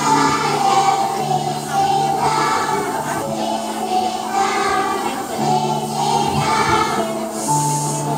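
A group of young children singing together over a backing track, whose low held notes change every second or two.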